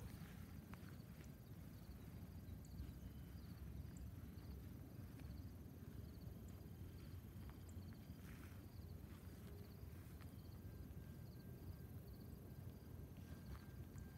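Faint prairie ambience: a steady low rumble under a quick, repeating high chirping of insects, with a thin steady tone near the end.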